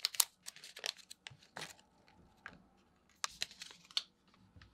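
Small plastic packet torn open and crinkled by hand: a run of short, quiet tearing and crackling sounds, busiest in the first second and a half and again about three seconds in.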